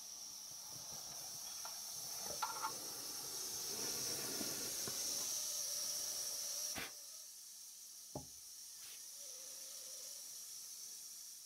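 Steady hiss from a Jensen 75 Mk.I alcohol-fired model steam engine. It swells in the middle and drops off sharply about seven seconds in. A few short clicks sound along the way.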